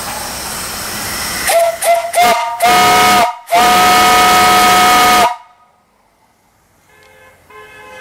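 Brass steam whistle on a vertical steam boiler being blown: a steady hiss, then a few short toots about a second and a half in, followed by two loud blasts, the last about two seconds long, which cuts off sharply.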